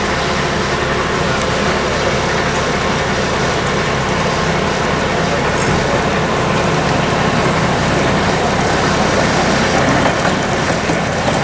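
Steady, unbroken running noise of a 15-inch-gauge railway locomotive close by, with a low, even hum under it.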